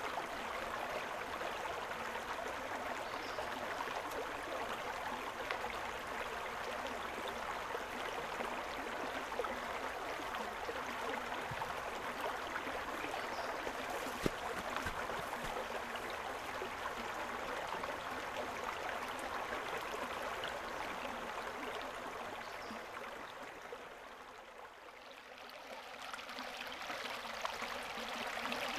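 Shallow, rocky creek running over a riffle of stones: a steady rush and babble of water. It dips quieter about three-quarters of the way through, then comes back up.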